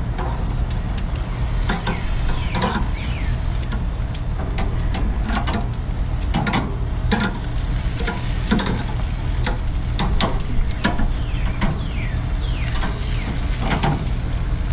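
Pork pieces being flipped on the grates of a Char-Griller 980 gravity-fed charcoal smoker: repeated sharp clicks and knocks of tool on grate and meat sizzling, over a steady low hum from the smoker's running fan.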